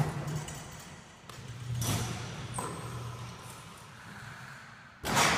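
Basketball impacts in a gym: a sharp bang at the start, a short squeak about two and a half seconds in, and a loud bang near the end, over a low steady hum.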